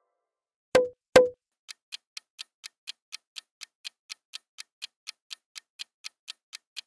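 Quiz countdown-timer sound effect: clock-like ticks about four a second while the answer timer runs. It is preceded by two loud, sharp pops about half a second apart as the new puzzle appears.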